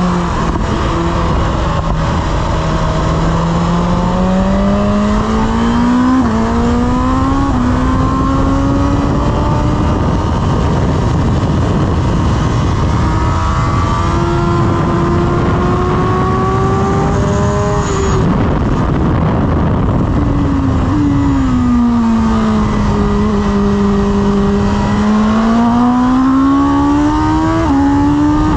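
2023 BMW S1000RR's inline-four engine heard onboard at full track pace, with rushing wind noise throughout. The revs climb with quick upshifts a few seconds in, drop and fall low about two-thirds through, then climb again to another upshift near the end.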